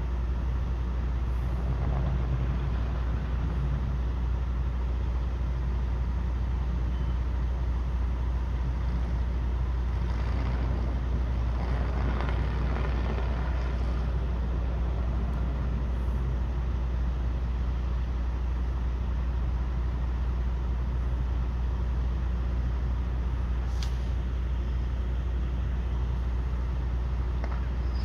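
Steady low rumble of an idling diesel truck engine, with a swell of hiss near the middle and a sharp crack near the end.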